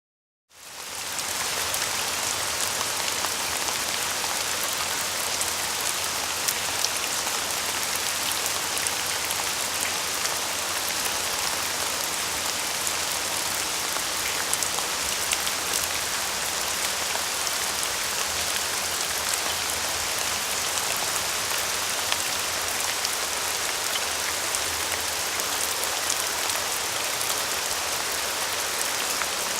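Steady rain falling and pattering on a surface, a dense even hiss dotted with fine drop ticks, fading in over the first second.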